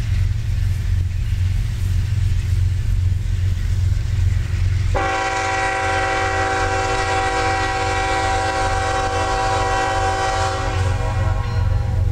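Diesel freight locomotive's multi-chime air horn, on CSX ES44AH 3172, sounding one long steady blast that starts about five seconds in and lasts about six seconds, over a steady low rumble.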